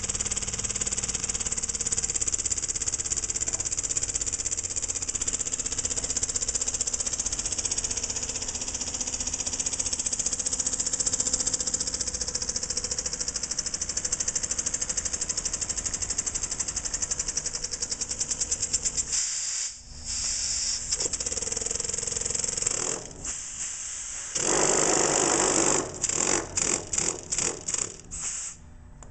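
Small brass oscillating-cylinder ('wobbler') model engine running fast, its exhaust a steady, rapidly pulsing hiss. About two-thirds of the way in the hiss cuts out and comes back several times, then breaks into separate puffs as the engine slows and stops shortly before the end.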